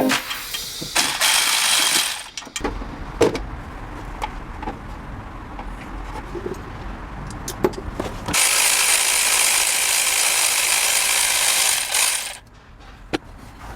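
Ratchet wrench clicking in short runs, with scattered metallic clicks, as bolts on the Citroën C2 1.1-litre engine's sump are worked. From about eight seconds in, a steady hiss lasts roughly four seconds and then cuts off.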